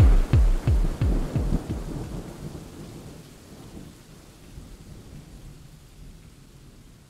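Thunder rumbling over steady rain. The rumble dies away over the first few seconds, leaving a faint rain hiss that fades out.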